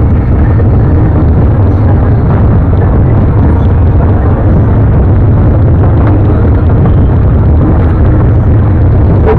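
Motorcycle engine running with a loud, steady low rumble as the bike rolls slowly.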